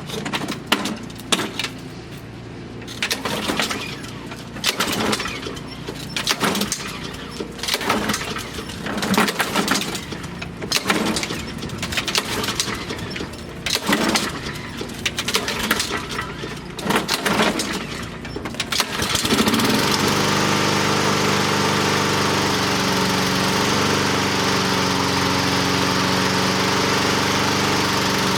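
Honda HRR216 walk-behind lawn mower being pull-started on choke for its first start after winter storage, with many tugs of the recoil starter. The engine catches about nineteen seconds in and then runs steadily.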